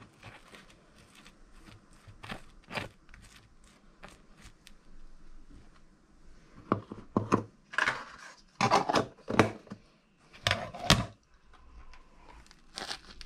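Table knife spreading margarine across a slice of crusty homemade bread: irregular scrapes and crackles of the crust, faint at first, then a run of louder crunchy strokes in the second half.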